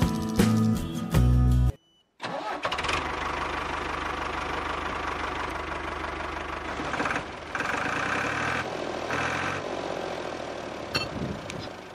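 Background music that cuts off about two seconds in, then a tractor engine starts and runs steadily for about nine seconds, fading near the end.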